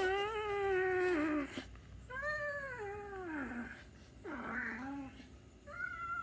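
A run of long, drawn-out meows: three calls of about a second to a second and a half, each sliding down in pitch at its end, with a fourth starting near the end.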